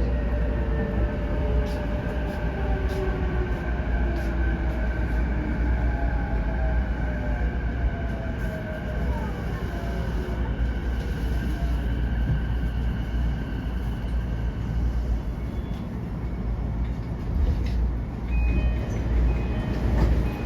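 JR East E233-8000 series electric train heard from inside the car, its wheels rumbling on the rails while the traction motors' whine slides downward in pitch as it slows for a station stop. A few clicks and a short high tone come near the end.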